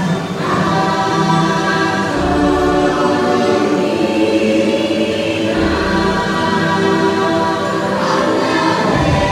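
Ride soundtrack: choir-like singing over sustained music, the voices holding long notes as the chords change every second or two.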